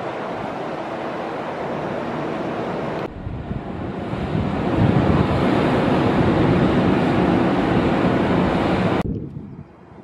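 Strong typhoon wind buffeting the microphone: a dense rushing noise, heavier in the low range, that changes abruptly about three seconds in, grows stronger midway and drops away sharply near the end.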